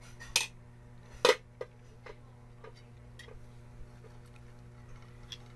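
Spoon clinking against a bowl and cooking pot as a small child serves herself: a handful of scattered clinks, the loudest about a second in, over a steady low hum.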